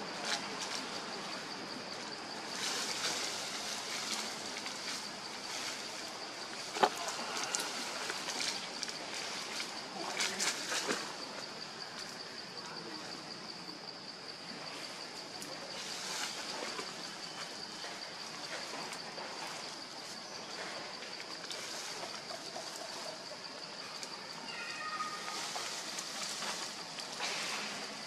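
Forest ambience: a steady high-pitched insect drone, with leaves and branches rustling and snapping as macaques climb through the canopy. There is a sharp snap about a quarter of the way in and a few brief chirps near the end.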